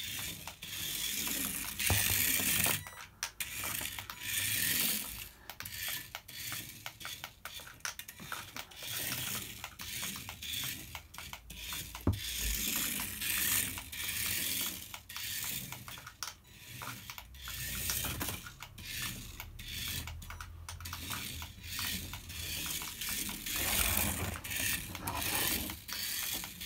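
Tiny 1/64-scale Pioneer mini Jeep RC car's electric motor and gears buzzing in short, high-pitched stop-start bursts as it is driven; the non-proportional control gives only full throttle or nothing. One sharp click about halfway through.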